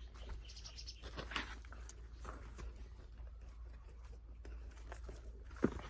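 Hands digging and rummaging through loose potting soil in a container, a soft irregular rustling with scattered small ticks and crunches. Near the end there is one brief, louder sound falling in pitch.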